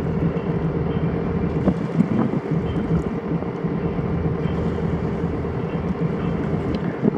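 Sailing yacht's inboard diesel engine running steadily, a constant hum, with some wind noise on the microphone.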